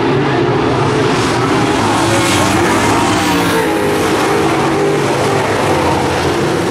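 A field of dirt-track modified race cars' V8 engines running together at racing speed, several engine tones rising and falling as the drivers get on and off the throttle through the turns.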